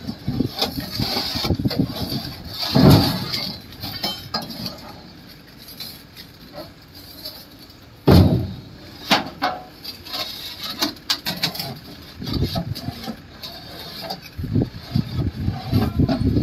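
Knocks and clinks of Hume concrete pipes being shifted on a steel flatbed trailer during unloading, with two loud thuds about three and eight seconds in.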